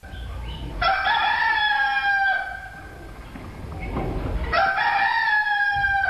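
Rooster crowing twice, each crow one long call of about a second and a half that sags slightly in pitch, over a low rumble.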